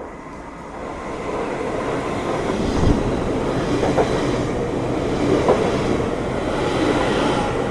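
LNER Class 800 Azuma train passing at low speed, its rumble building steadily, with a few clicks from the wheels.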